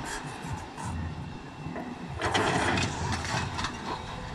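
Excavator engine running while its demolition grapple tears at a brick wall and roof, with a loud burst of crunching and falling debris a little past halfway.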